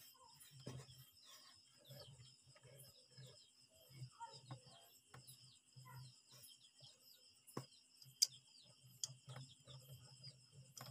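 Faint, steady chirping of insects such as crickets, with a few small sharp clicks, the loudest about two-thirds of the way through.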